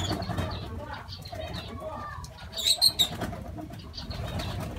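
Flock of lovebirds chattering with many small high chirps and wing flaps as they feed, with a quick run of three loud, shrill calls a little past the middle.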